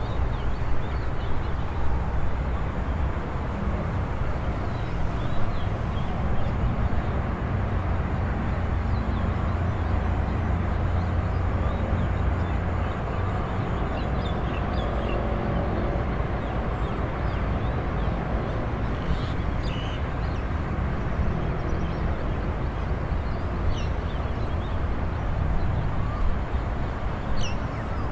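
Open rural outdoor ambience: a steady low rumble of distant traffic, growing fuller in the middle as an engine passes, with scattered short bird chirps over it.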